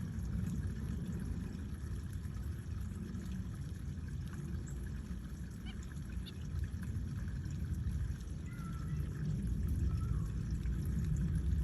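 A steady low rumbling noise with a few faint, brief bird chirps and short calls from small aviary birds, mostly in the second half.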